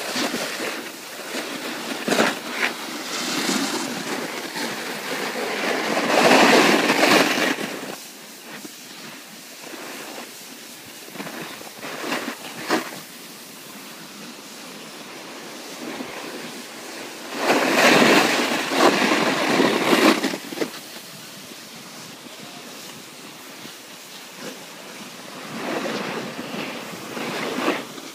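Edges sliding and scraping over packed snow: a steady hiss with two long, louder scrapes, about six seconds in and again around eighteen seconds in, and a few sharp knocks.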